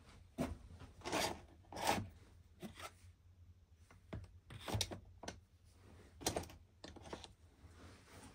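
Irregular handling noise: a string of short clicks, knocks and scrapes at uneven intervals. The loudest come about one and two seconds in, again near the middle, and about six seconds in.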